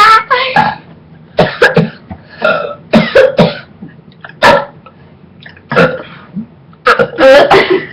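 People burping on purpose: a string of short, forced burps, with the longest and loudest near the end.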